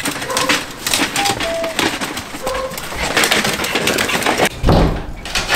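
Plastic pet carriers with small dogs inside rattling and clattering as they are carried, with a few short high whines, and a heavier low thump about five seconds in.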